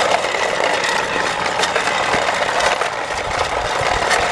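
Battery-powered toy train running, its small electric motor whirring steadily with a thin high whine and its wheels and plastic body clicking and rattling.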